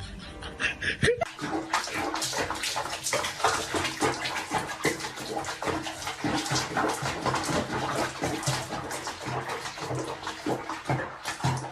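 Water splashing and sloshing in quick, irregular splashes, as in a bathtub.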